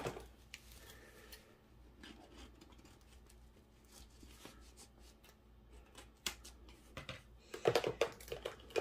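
Scissors snipping through the tape that holds a rolled diamond painting canvas shut: faint scattered snips and handling, then a louder run of short cuts near the end.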